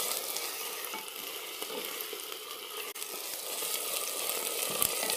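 Ginger-garlic paste, green chillies and browned onions sizzling in hot oil in a clay handi (earthenware pot), stirred with a spatula that scrapes lightly against the pot now and then.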